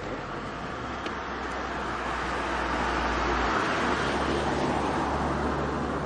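VW Golf MkIII VR6's narrow-angle V6 idling steadily, with a low hum under a broad hiss that grows louder about halfway through.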